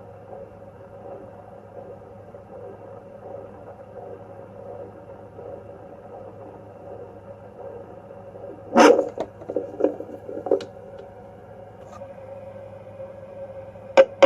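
Fetal Doppler's speaker giving a steady static hiss with a hum. About nine seconds in, a loud cluster of crackling bursts breaks through, and a few more follow over the next second and a half.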